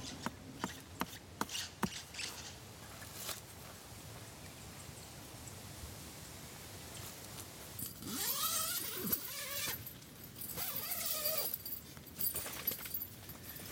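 A few light clicks and knocks of handling in the first few seconds, then a dog whining in two short bouts, its pitch rising and falling.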